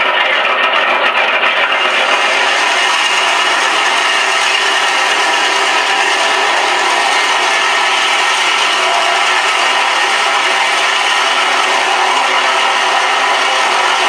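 Recorded Skyraider radial-engine idle sound, played by a Shockwave sound module through two 3-inch speakers in a radio-control A-1H Skyraider model. It is a steady, thin engine sound with no deep bass and gets brighter from about two seconds in. It is the idle setting that the owner says is hard to get to hold.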